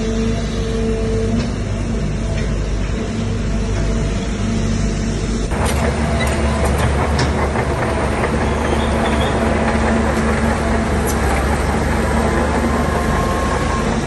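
Heavy bulldozer's diesel engine running steadily, its note changing abruptly about five and a half seconds in, with a few sharp knocks after that.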